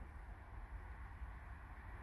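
Faint, steady low rumble and hiss of a distant passenger train hauled by a ChS7 electric locomotive, still far off as it approaches.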